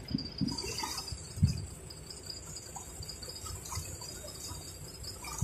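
Water swishing and lapping against the hull of a moving boat, with a few low thumps in the first two seconds.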